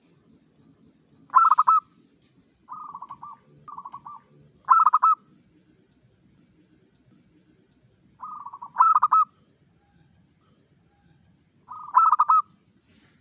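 Zebra dove (perkutut) cooing in short rolling phrases of quick pulsed notes, some soft and some louder, several ending on a loud trilled note; four such bursts with pauses of a few seconds between.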